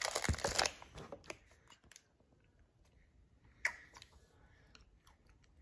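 Clear plastic snack bag crinkling for about the first second as a piece is taken out. Then faint scattered clicks and rustles of handling, with one sharper crackle of the plastic a little past the middle.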